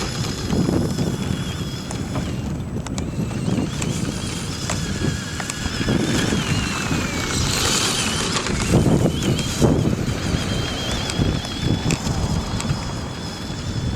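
Horizon Hobby AMP MT 2WD electric RC monster truck driving on dirt: a thin, high motor and gear whine rising and falling in pitch with the throttle, over a low rumble of tyres and rough ground, with a few rattling clicks.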